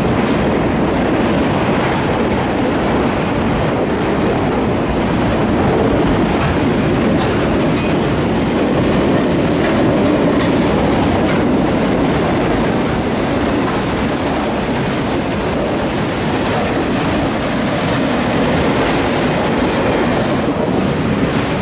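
Steady road noise of a work truck driving with a trailer in tow, heard from inside the cab, with light rattling over the top.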